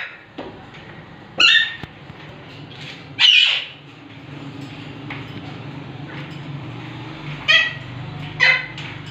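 Alexandrine parakeets giving four short, harsh squawks: one about a second and a half in, one at about three seconds, and two close together near the end.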